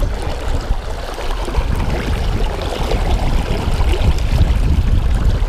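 Steady rush of river current swirling around a wading angler's legs, loud and close to the microphone.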